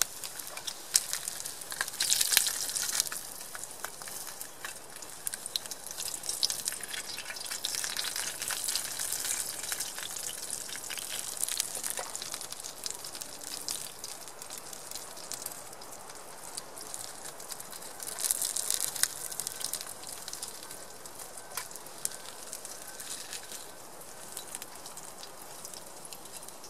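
Slices of Spam sizzling in a frying pan over a campfire: a steady high hiss of frying fat scattered with small pops and spits. The sizzling swells louder about two seconds in and again about eighteen seconds in.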